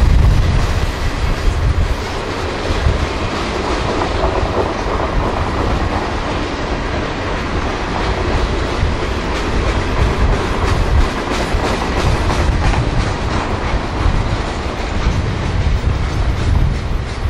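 A train rolling past, loud and steady: the rumble of wheels on rail with repeated clicks as the wheels run over the rail joints.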